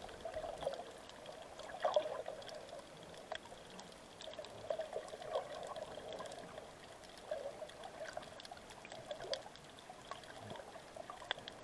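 Faint sea water sloshing and bubbling close to the microphone, an irregular patter with small scattered clicks.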